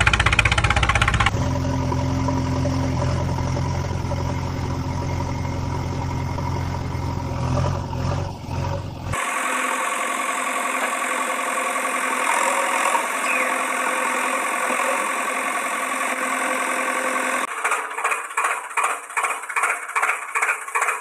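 Engine sounds running steadily in three abruptly cut segments: a deep, loud run for the first second, a steady idle to about nine seconds, then a higher run without the low rumble. Near the end it turns to a fast, even chugging of about two to three beats a second.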